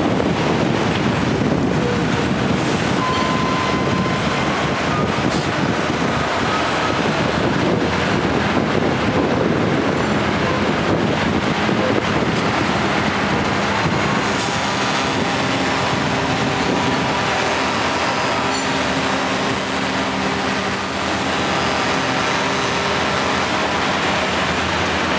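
Steady city traffic noise. About halfway through, the steady drone of an engine joins it.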